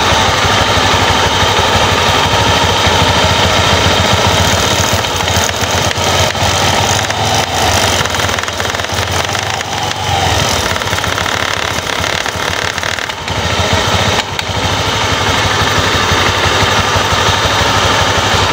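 Honda Vario scooter's single-cylinder engine running with the CVT cover off, its clutch bell spinning while a wooden block is pressed against the rim, giving a rough rubbing noise over the engine's pulse. The block brakes the bell so the thick clutch shoes slip and lap flat against it, a fix for clutch judder. The engine cuts off at the very end.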